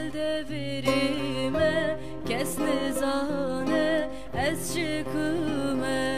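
Kurdish song performed live: a woman singing an ornamented, wavering melody over acoustic guitar and a long-necked saz.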